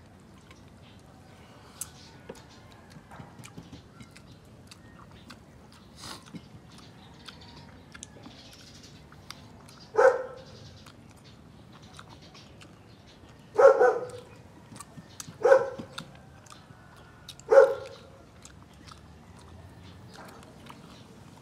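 A dog barking in four short, loud barks spread over the second half, with soft chewing and mouth clicks from eating between them.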